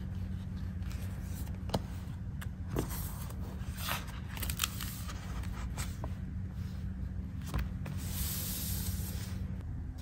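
Hands handling a notebook and paper: scattered taps and clicks of fingers and nails on the cover and pages, with paper rustling and sliding as the notebook is opened and a sheet is moved across it. A steady low hum runs underneath.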